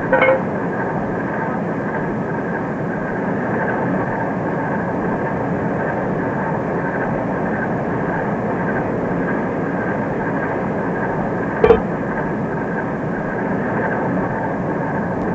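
A steady mechanical drone with a faint high tone running through it, and one short knock about twelve seconds in.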